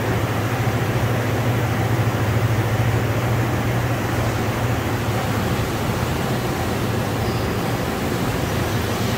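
Steady low machine hum over a broad, even hiss: the running background of a machine shop's powered equipment.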